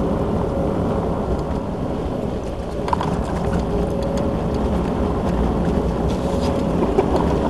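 Mitsubishi Lancer Evolution X's turbocharged 2.0-litre inline-four running steadily under way, heard from inside the cabin together with the rumble of the tyres on snow and ice.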